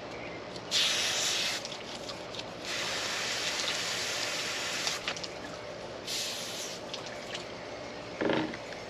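Water spraying from a hose in three bursts, the middle one the longest, with a short rattle near the end.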